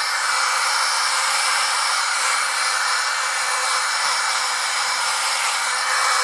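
LICORNE YY6617 cordless wet-and-dry handheld vacuum running steadily: a rush of air with a thin high whine from its motor. It is working over pieces of popcorn, which it is not powerful enough to pick up.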